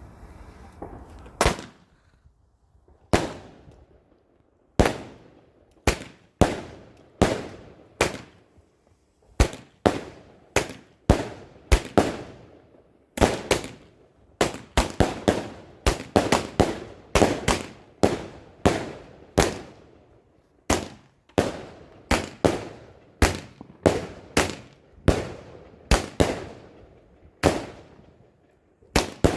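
Fireworks going off in a long, irregular series of sharp bangs, each with a brief echoing tail. After a first bang about a second and a half in, the bangs come closer together, often one or two a second.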